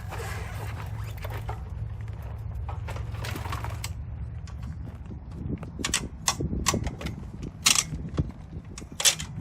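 Camping gear being handled: a run of sharp clicks and knocks, denser and louder in the second half, over a steady low rumble.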